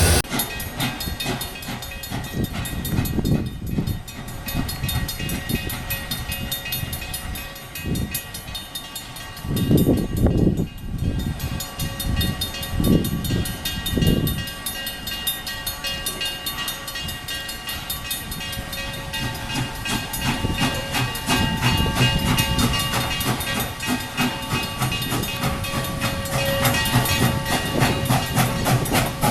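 Steam locomotive #7470's train running along the track, with a steady rapid clicking of wheels on rails throughout. Several heavy low rumbling surges come about a third to halfway through.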